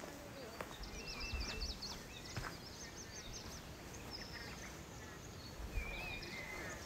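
Small birds chirping in quick, high, twittering calls over a steady outdoor background, with a few soft low knocks.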